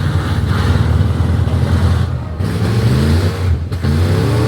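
Demolition derby cars' engines running loud, with one engine revving up in pitch near the end.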